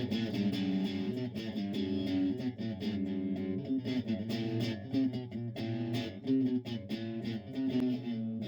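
Rock music with electric and bass guitar, over a steady drum beat.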